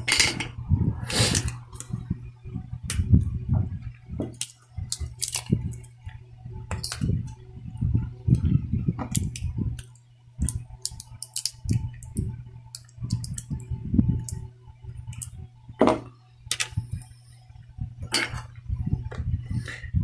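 Irregular small clicks, taps and short scrapes of a metal tool picking at a circuit board held in the hand, over a steady low hum.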